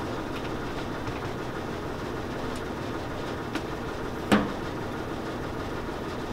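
An old chocolate melting machine running with a steady mechanical drone, a machine the users call "a little loud". One sharp metallic click about four seconds in.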